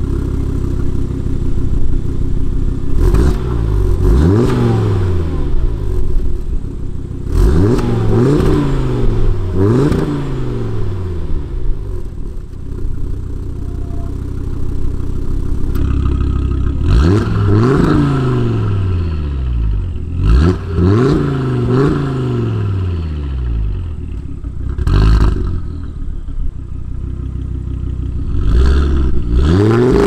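Audi RS3 8P's turbocharged 2.5-litre five-cylinder engine idling through a non-resonated Milltek exhaust with secondary decats, blipped again and again while parked; each rev rises sharply and falls back to idle. From about halfway through it runs with the exhaust valve closed.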